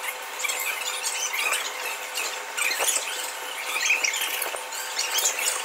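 Mechanical rodeo bull in motion: a steady hum under many short, high squeals and a few clicks.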